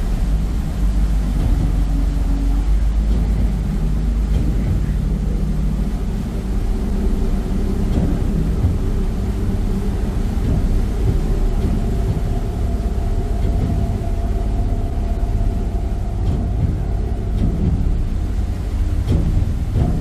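Harbour ferry's engine running steadily under way, a low rumble with a few steady hum tones, mixed with wind rumble on the microphone. A higher steady hum joins about midway.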